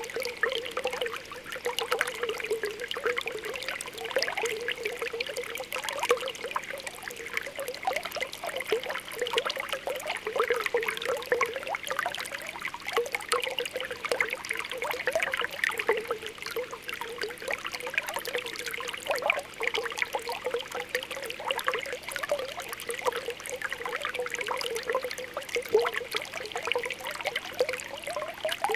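Spring water welling up from the ground with continuous small popping, bubbling sounds and a light trickle.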